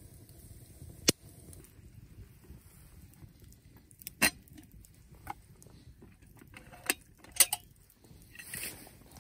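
Metal camp kettle being handled: several sharp metallic clinks and knocks as its lid is taken off, and a short hiss near the end, over the low crackle of a wood fire.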